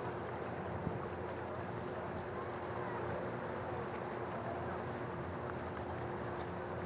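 Steady seaside harbour ambience: an even wash of sea and outdoor noise with a constant drone underneath, and a single small click about a second in.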